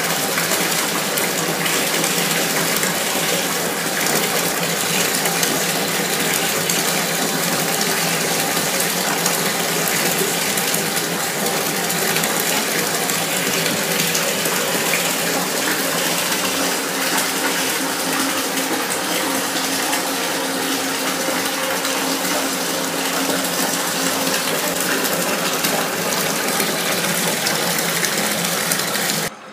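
Water running steadily from a tap into a bathtub, an even rushing noise that stops abruptly near the end.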